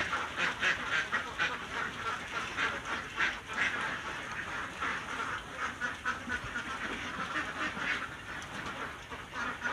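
A flock of domestic laying ducks quacking, many short calls overlapping without a break.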